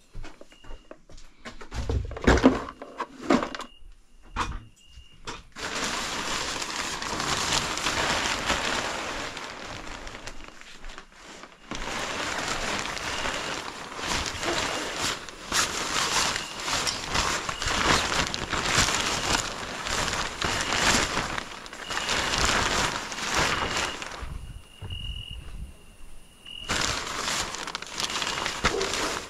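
Vehicle cover rustling and crinkling as it is handled and pulled over a quad bike, after a few knocks and thumps in the first seconds.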